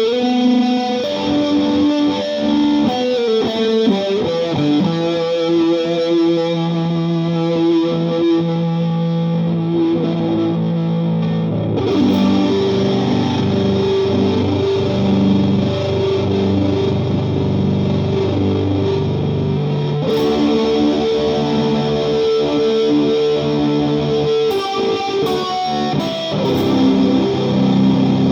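Fender Telecaster electric guitar played through a Vox AC15 amp with a stack of fuzz, overdrive and flanger pedals, giving a heavily distorted sound. It plays long sustained notes and chords, with the pitch sliding and wavering about four seconds in.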